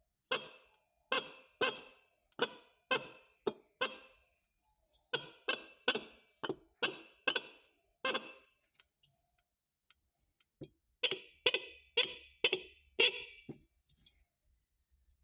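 Motorcycle electric horn sounded in short beeps, about two a second, in three runs of six or seven, as test toots while its tone is being adjusted.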